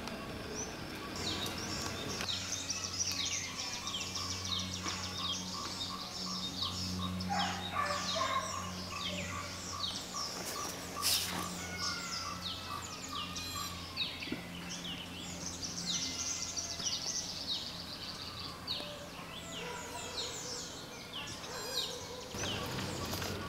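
Many birds chirping and twittering in short, quick falling notes, over a steady low hum. There is one sharp click about eleven seconds in.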